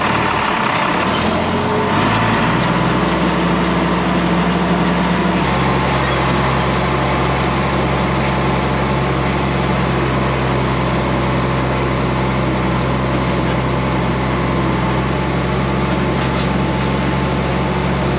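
John Deere tractor engine running steadily under load while pulling a wheel hay rake, heard from the operator's seat. The engine note shifts slightly a couple of times in the first few seconds, then holds steady.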